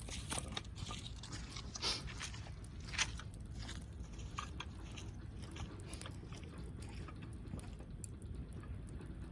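Wood campfire crackling, with a few sharper pops in the first three seconds and lighter ticks after.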